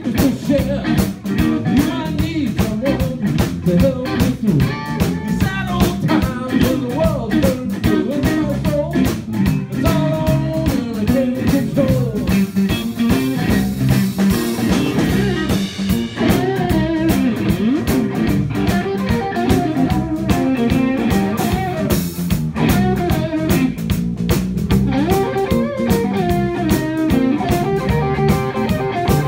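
Live blues band playing, led by an electric bass and guitar, with a man singing into a microphone, recorded on a phone so the sound is rough.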